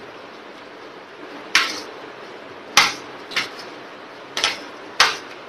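Metal spoon clinking against a plate while scooping rice: five sharp clinks, spaced irregularly through the second half, over a steady background hiss.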